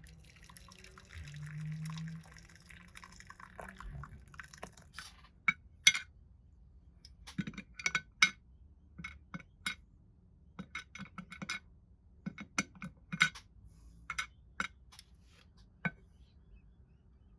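Small, sharp, irregular clicks and taps from handling small diecast toy parts and hand tools on a workbench, after a few seconds of faint scraping.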